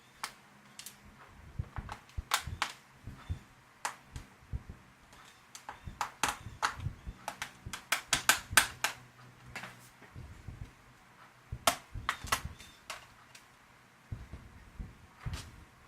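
Irregular sharp clicks and taps of small laptop parts being handled and worked at, coming in quick clusters, as a stuck part inside a Lenovo ThinkPad P50 is fiddled with.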